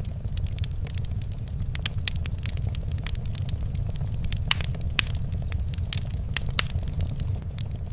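Wood fire crackling in a fireplace: frequent, irregular sharp pops and snaps over a steady low rumble.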